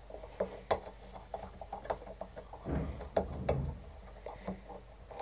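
Small irregular metal clicks and taps as a screwdriver tightens the presser-foot screw on a straight-stitch sewing machine, with a louder stretch of handling noise about three seconds in.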